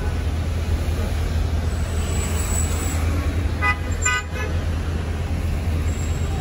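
Road traffic with a steady low rumble, and two short car-horn toots a little under four seconds in.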